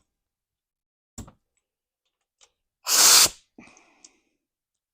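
A short blast of compressed air from an air blow gun, about half a second long, about three seconds in, after a light click.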